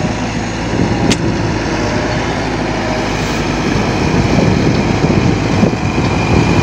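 Small dump truck's diesel engine running as the truck drives slowly over loose dirt, with a brief sharp click about a second in.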